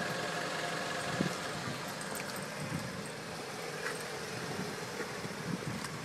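2012 Mazda 6 engine idling steadily while parked, heard from beside the front wheel. The owner is chasing a recurring idle noise that he suspects comes from a loose seal where the exhaust joins the muffler.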